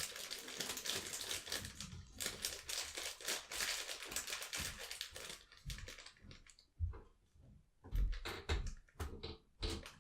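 A small packet of charms crinkling and rustling as it is handled and opened, followed over the last few seconds by a scatter of light taps and knocks.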